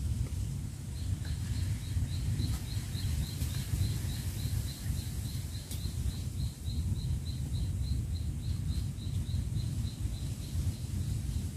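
Outdoor ambience: a steady low rumble with a high, short chirp repeating evenly about three to four times a second, starting about a second in.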